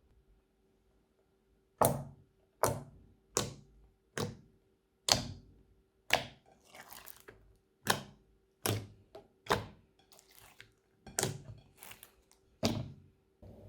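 A series of about a dozen sharp thunks, roughly one every three-quarters of a second, each dying away quickly.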